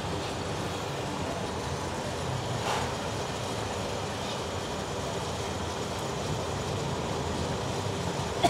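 Steady low background rumble, with a brief hiss a little under three seconds in and a sharp click at the very end.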